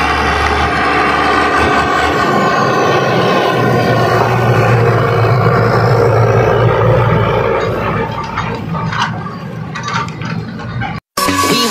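Ursus 1634 tractor engine running hard as the tractor pulls a grain trailer past, growing louder as it draws near in the middle and fading as it moves away.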